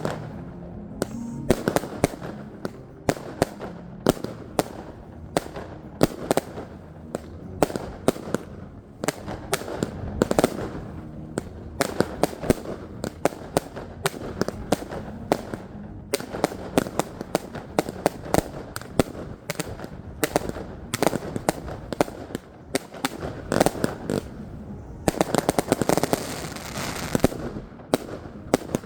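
Consumer firework batteries (Argento Eisblume and Blutmond cakes) firing a steady, irregular run of sharp shots and bangs, several a second. About 25 seconds in, a dense burst of crackling lasts a couple of seconds as another battery (Argento Veronica) starts.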